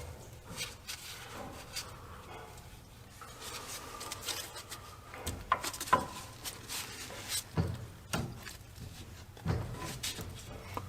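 Hand tools clinking and knocking against metal parts, with scattered rubbing and a few sharper knocks about halfway through and again near the end.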